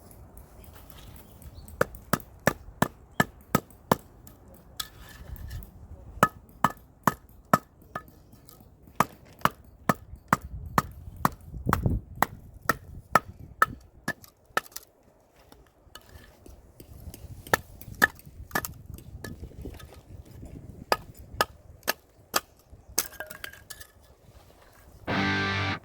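Firewood being split by hand: a run of sharp, regular strikes, about two or three a second with short pauses between runs, each with a brief metallic ring. Guitar music starts near the end.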